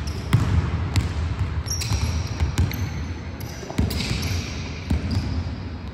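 Basketballs bouncing on a hardwood gym floor, with a sharp bounce at irregular intervals about once a second and brief high sneaker squeaks in between.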